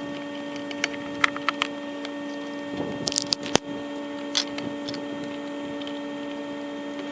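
Light clicks and taps of parts being handled in an engine bay, with a sharp click about halfway through, over a steady hum.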